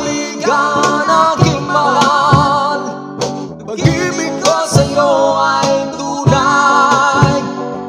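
Music: a Tagalog love ballad, with a singer holding long wavering notes over guitar.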